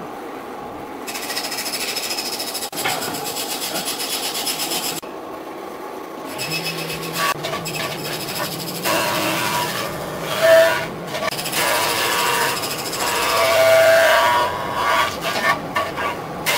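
Power tool running in spells: a steady, fast rattle for a few seconds, a short stop, then a louder, uneven grinding run with a couple of loud peaks.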